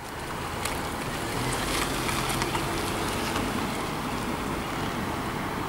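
Jet airliner engine noise heard from a distance: a steady rumble with a faint low hum, fading in at the start. Wind buffets the microphone, with a few short crackles in the first half.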